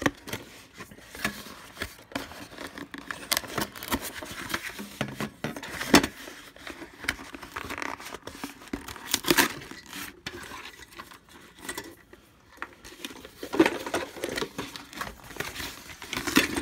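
Cardboard packing rustling and crinkling while a metal weather vane is handled and freed from its plastic tie, with irregular clicks and knocks of the metal parts. The loudest knocks come about six and nine seconds in.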